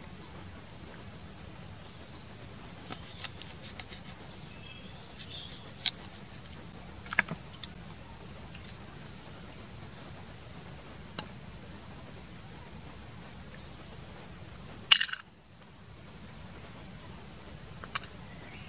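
Steady high chirring of forest insects, with scattered taps and clicks from cutting and handling the eel and a sharp knock about fifteen seconds in.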